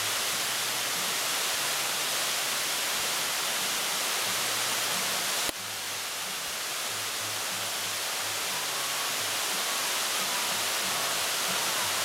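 Steady rush of a waterfall and creek, with one click and a brief dip in level about halfway through.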